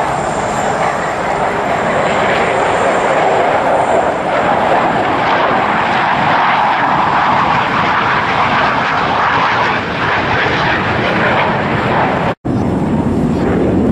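Jet noise from a pair of JASDF F-15J fighters' twin turbofan engines as they fly past in close formation, a dense steady noise that swells through the middle. It cuts out for an instant about twelve seconds in.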